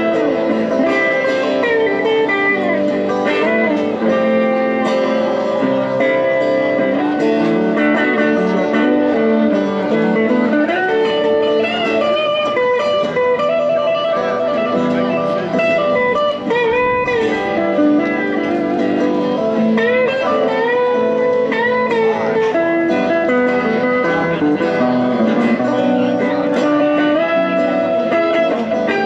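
Electric guitar playing a slow, blues-flavoured melody with many bent notes.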